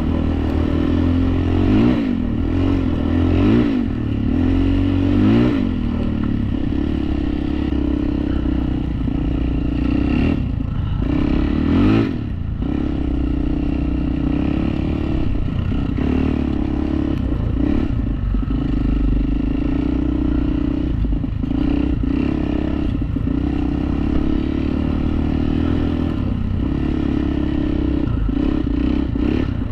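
ATV engine running under way, revving up and down several times in the first few seconds, then pulling at a fairly steady pitch.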